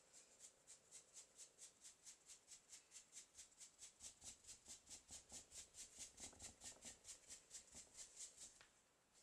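Paintbrush scrubbed rapidly on canvas drop cloth: faint, even, scratchy brushing strokes, about four or five a second, that stop near the end. Brown paint is being worked into the fringed edge to make it look worn.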